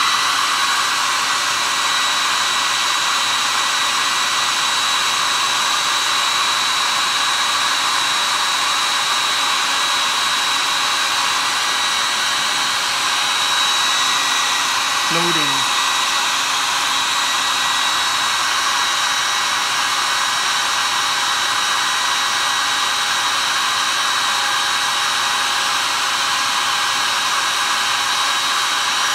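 Conair Cord-Keeper 1875 hair dryer running steadily: a rushing stream of air with a thin, steady high whine.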